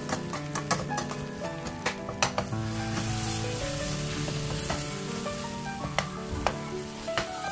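Food sizzling in a frying pan, with irregular clicks and scrapes of a utensil stirring it, over background music.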